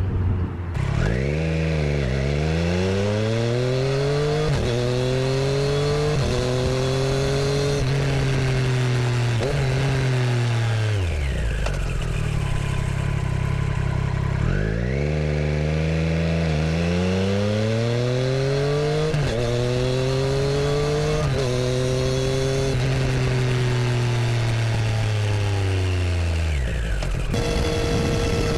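Triumph Street Triple RS's 765 cc inline-three with an aftermarket Arrow exhaust, accelerating hard through several gears with quick upshifts. It rolls off and runs low for a few seconds, pulls through the gears again, and rolls off once more near the end, with some wind noise.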